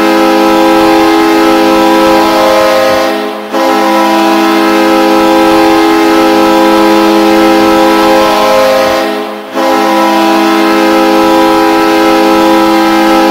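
Hockey goal horn sounding in long, loud blasts, a chord of several steady tones held at once. It breaks off briefly about three and a half seconds in and again about nine and a half seconds in, then sounds again.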